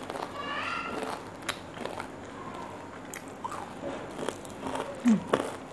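Crunching and chewing of crispy fried cassava cakes: a string of sharp crisp crackles as the fried crust is bitten and chewed.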